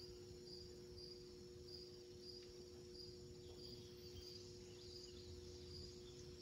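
Faint cricket chirping, a short chirp about every two-thirds of a second, over a low steady hum.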